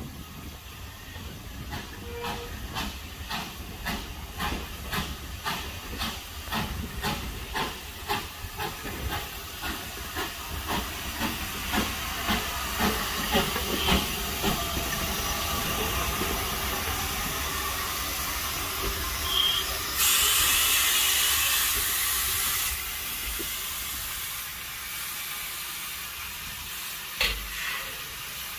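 Taff Vale Railway Class 02 0-6-2T steam tank engine working slowly past with its coaches: regular exhaust chuffs at about two to three a second, growing louder as it nears, then a steady steam hiss. About twenty seconds in, a louder rush of escaping steam lasts a couple of seconds, and near the end there is a single clank.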